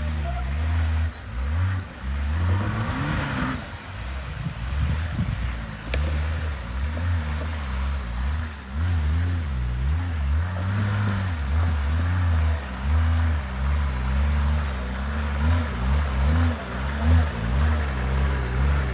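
Nissan Patrol Y61's swapped-in BMW M57 3.0 straight-six turbodiesel working in mud, its revs rising and falling over and over.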